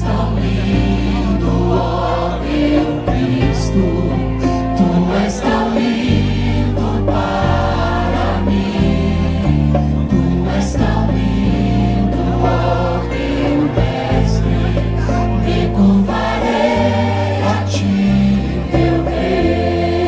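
Live concert band and choir performing a gospel song: the choir sings over brass, with deep tuba bass notes that change every second or two and frequent drum and cymbal hits.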